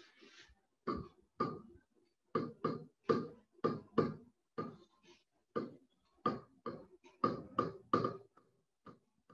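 A stylus writing on a digital board or tablet: about fifteen short taps and strokes, roughly two a second, as a formula is handwritten.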